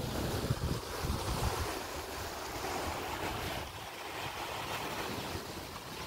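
Sea waves washing against the base of a rocky cliff, a steady surf wash, with wind buffeting the microphone as a low rumble in the first second and a half.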